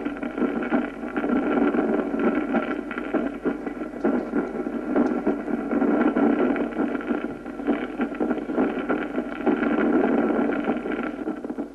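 Stethoscope recording of muffled first and second heart sounds heard through a tubular breath murmur (soplo tubario), a blowing noise that swells and fades with each breath. Dulled heart sounds like these occur in pleural effusion, obesity and emphysema.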